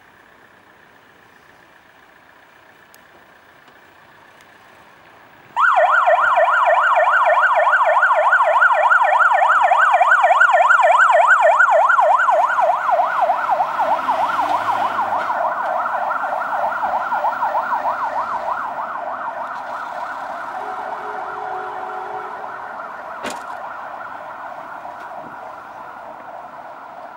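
Fire truck's electronic siren switching on abruptly about five seconds in, a fast warble that is loud as the truck pulls out and then fades steadily as it drives away on an emergency call.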